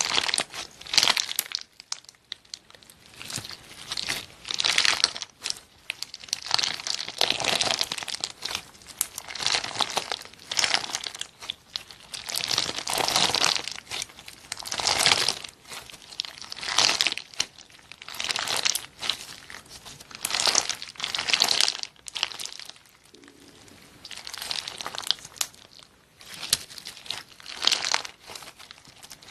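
Slime being squeezed and pressed by hand, giving repeated short crackling squishes about once every second or two.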